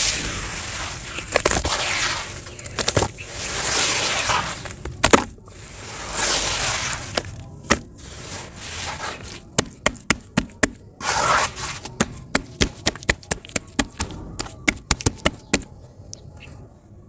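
Hands squeezing and mashing wet sand slurry in a plastic tub: wet squelching and swishing at first. Through the second half comes a quick run of sharp wet clicks and pats, and the sound dies down near the end.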